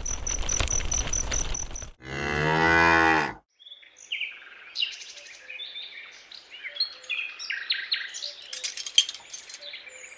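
A cow moos once, a long low call about two seconds in, after a couple of seconds of hissing noise. Faint crickets and birds chirp through the rest.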